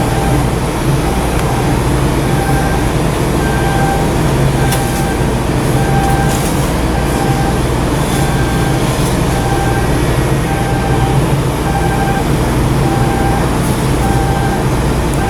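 Steady low mechanical rumble with a short, high electronic beep repeating about once a second.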